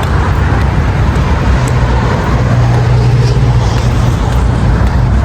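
Road traffic: a motor vehicle's steady low rumble, swelling a little in the middle.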